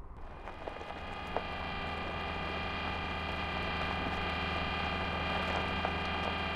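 A steady mechanical-sounding humming drone with several high whining tones over a low hum. It fades in over the first second or two and carries a few faint clicks.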